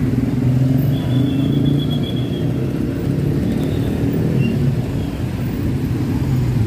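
Road traffic: vehicle engines running steadily and close by, with a brief faint high-pitched squeal about a second in.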